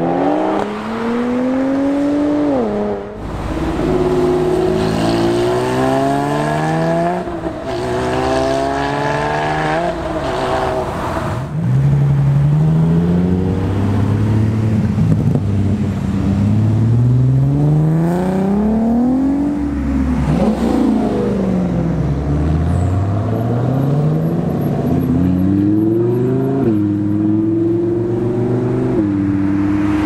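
Several cars accelerating one after another, their engine notes climbing in pitch and dropping sharply at each upshift, with two or more engines often heard at once.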